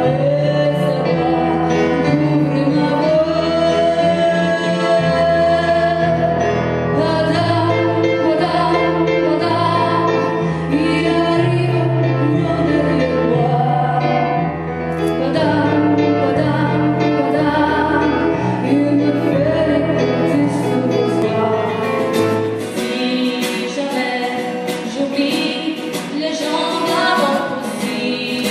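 A song: singing over an accompaniment with a stepping bass line. The bass drops out near the end, leaving the voice over lighter accompaniment.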